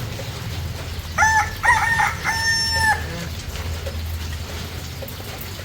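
A rooster crowing once, a cock-a-doodle-doo of two short notes followed by a longer held one, over a steady background hiss.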